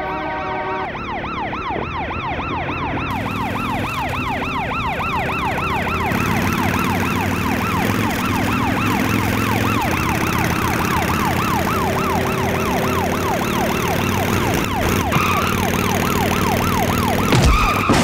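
Police siren in a fast yelp, rising and falling about three to four times a second, over the low rumble of traffic. Car horns sound at the very start, and there is a heavy low thud near the end.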